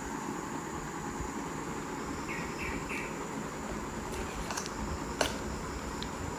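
Insects chirping over a steady hiss and a high steady tone, with three short chirps a little over two seconds in. A single sharp click comes a little after five seconds.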